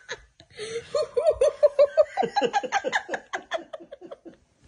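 A person laughing heartily: a rapid run of short 'ha' sounds that starts about a second in, drops in pitch and trails off near the end.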